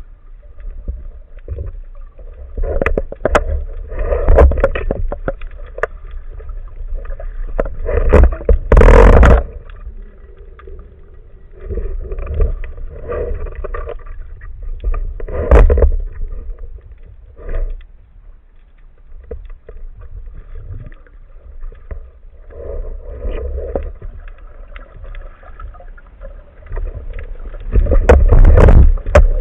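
Water noise heard through an underwater camera housing: irregular surges of sloshing and bubbling with short knocks, loudest about nine seconds in and again near the end.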